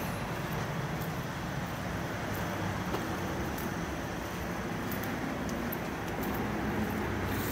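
Steady low rumble of background noise, like traffic, with a few faint light clicks.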